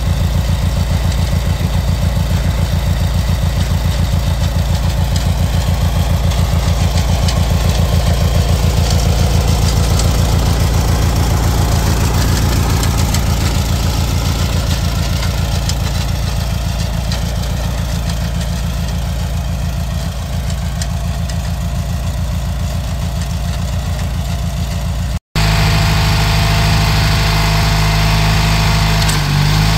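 The 18-horsepower twin-cylinder engine of a 1987 Huskee garden tractor running steadily at idle, with an even low pulse. After a break about 25 seconds in, it runs on with a smoother, steadier note.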